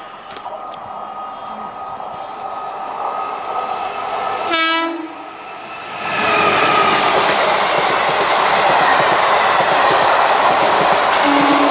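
Indian express passenger train hauled by a WAP-4 electric locomotive approaching and passing at speed: a short horn blast about four and a half seconds in, then from about six seconds the loud steady rush and wheel clatter of the coaches going by. Another horn starts near the end.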